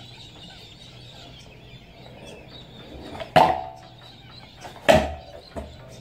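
Skateboard deck and wheels slapping down hard on concrete: a sharp crack about three and a half seconds in and a second about a second and a half later, each with a short ringing note, then a smaller knock. It is a bailed trick, the deck kicking out from under the rider.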